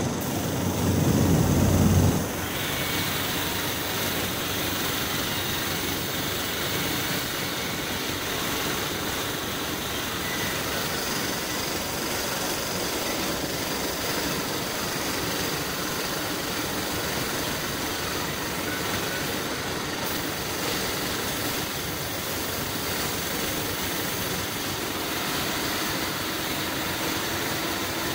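Steady hiss and running noise of a compressed-air spray painting setup: gravity-feed spray gun on an air hose, with the compressor's motor running. A louder low rumble in the first two seconds stops abruptly, and a higher hiss comes up just after.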